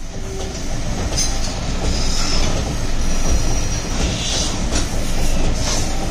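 Belt-driven floor lathes running together in a brass workshop: a steady clattering rumble from the spinning spindles and overhead belts and pulleys, with brief higher scraping now and then as hand tools work the spinning brass diyas.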